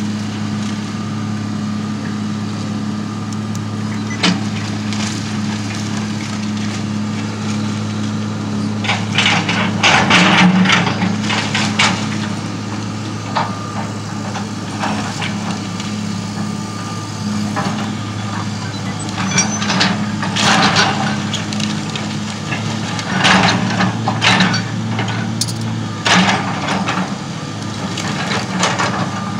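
Hitachi EX200 hydraulic excavator's diesel engine running steadily while its bucket tears into a wood-frame house, with several bursts of wood splintering and siding and roofing crashing down, the loudest about ten seconds in and more in clusters later on.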